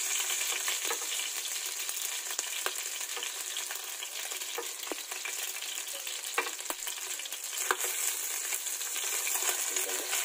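Tuna pieces frying in hot oil in a nonstick pan: a steady sizzle with scattered sharp pops and clicks. The oil spits because the fish is fatty.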